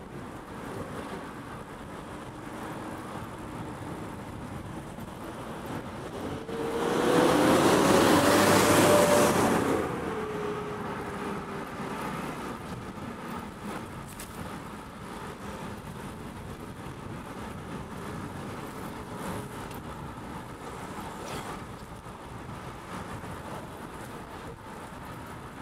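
Steady road and wind noise on a moving bicycle, with a motor vehicle passing close by about seven seconds in: it swells loud for some three seconds, its engine tone rising and then dropping as it goes past.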